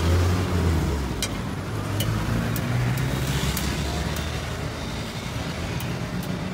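Road traffic with a vehicle engine running close by, a steady low hum, with a few short sharp clicks scattered through it.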